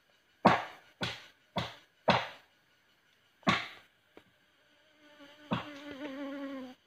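Parang (machete) chopping into a felled tree trunk: four sharp strikes about half a second apart, then a fifth a little over a second later, each ringing briefly. Near the end an insect buzzes close by for about two seconds with a steady, slightly wavering hum.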